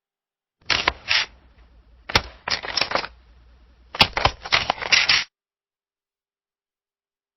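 Camera shutter clicking in three quick bursts of several clicks each, the later bursts longer.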